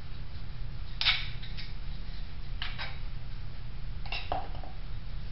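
Short scraping strokes of a wooden applicator spreading cutting oil across a mild-steel plate, three strokes a second or so apart, over a steady low hum.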